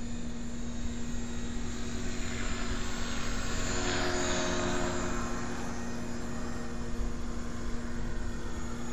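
HK450 electric RC helicopter in flight, its rotor and motor giving a steady drone. The drone grows louder as it passes close, about four seconds in.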